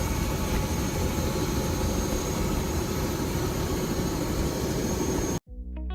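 Steady helicopter turbine and rotor noise, a constant loud rush. It cuts off abruptly near the end as electric guitar music starts.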